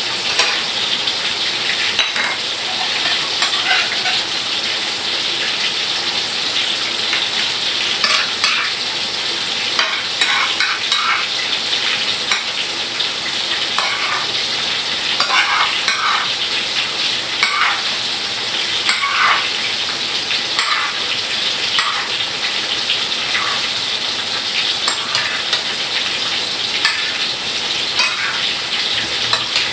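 A steady sizzling hiss from cooking on a lit gas stove, with light clinks of a spoon against a small dish every few seconds.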